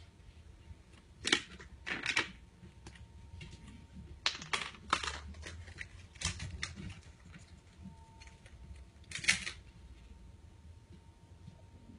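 Kittens scuffling and pawing at each other on a blanket: short scratchy rustles and clicks in irregular bursts every second or two, the sharpest about a second in and about nine seconds in.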